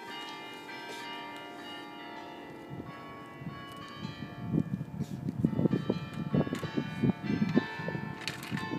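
Bells ringing, with many ringing tones overlapping and dying away. From about halfway, irregular low thuds and rumbling join in and become the loudest sound.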